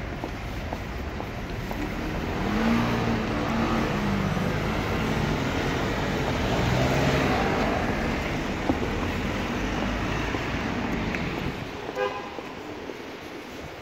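City street traffic: cars and scooters running and passing at an intersection, with a low engine hum swelling in the middle and easing off near the end.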